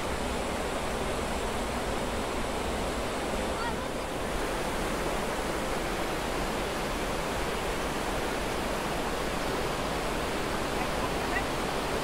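Steady, unbroken rush of a large waterfall: a constant full roar of falling water with no breaks or separate events.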